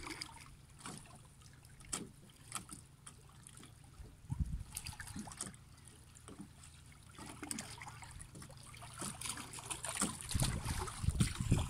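Small waves lapping quietly against shore rocks and a small dinghy's hull, with scattered light clicks and a dull thump about four and a half seconds in. Wind buffets the microphone near the end.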